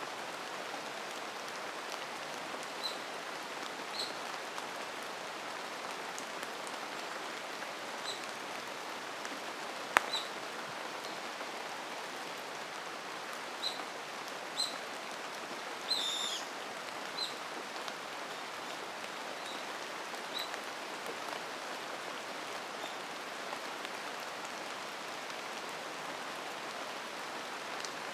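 Steady rain falling, with a bird giving short, high single chirps every few seconds and a quick falling call about halfway through. A single sharp click, a little before that call, is the loudest sound.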